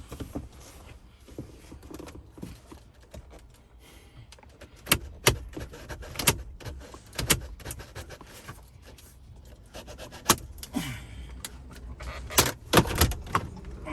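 Plastic retaining clips of a 2022 Ram 1500's radio and dash panel snapping loose as the panel is pried and pulled out by hand: a string of sharp clicks and pops with plastic rattling in between, the loudest snaps in the second half.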